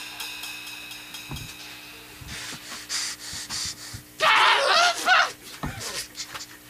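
A person gasping a few times, then letting out a loud, wavering shriek about four seconds in, as a staged stabbing is acted out; a couple of dull thumps and a steady low amplifier hum underneath.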